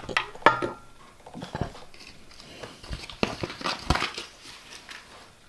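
Small plastic toys and packaging being handled: scattered light knocks and clicks with some crinkling.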